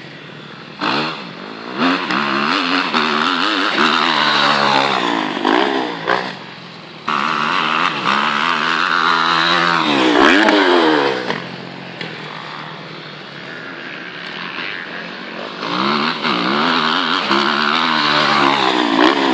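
Motocross dirt bike engines revving, the pitch climbing and falling again and again as the bikes ride the track and take the jumps. There is a brief lull about six seconds in, and the revving comes back abruptly a second later.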